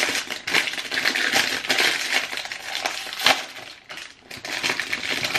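Clear plastic bag crinkling and crackling as it is handled, with a louder sharp snap about three seconds in.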